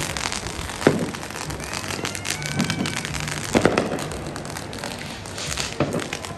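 Fireworks going off: a dense crackle of small pops, with two louder bangs about a second in and just past halfway.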